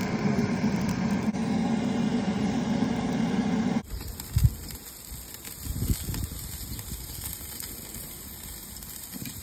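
Handheld propane torch running with a steady roar as it lights lump charcoal in a kamado grill. It cuts off abruptly about four seconds in, and is followed by quieter crackling from the burning charcoal under the grate, with a couple of low thumps.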